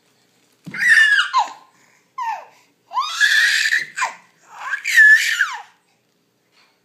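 A baby's high-pitched, loud happy squeals: four shrieks, the first coming about a second in.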